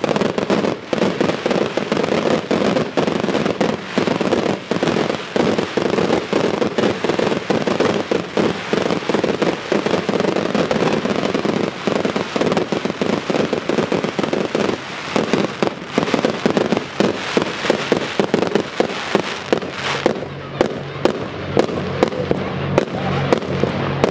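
A firework display barrage: a dense, continuous rattle of shell bursts and crackling stars, many pops a second. About 20 seconds in, the barrage thins to more separate pops and bangs, with a faint low hum beneath.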